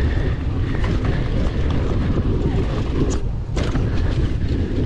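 Heavy wind buffeting on the microphone while riding a mountain bike over a trail, with a few sharp knocks and rattles from the bike.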